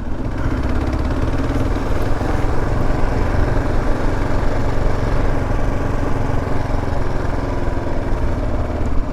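Single-cylinder 650 cc dual-sport motorcycle engine running at a steady pace under way.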